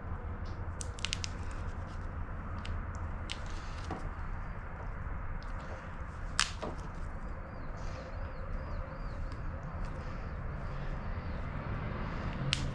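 Scattered clicks and a couple of sharp snaps from working a hand-cranked copper wire stripper, with a few faint squeaks near the middle, over a steady low hum.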